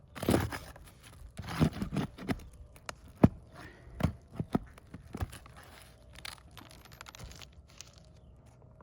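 Asphalt shingles being pried up and pulled loose: a run of sharp snaps and short tearing, crackling rips as the sealed tabs break free, dying down to quieter scraping and handling after about five seconds.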